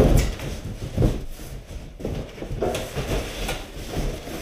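Cardboard shipping box and its packing being handled: a heavy thump at the start and another about a second in, then irregular knocking and scraping as cardboard packing is pulled out around a replacement fender.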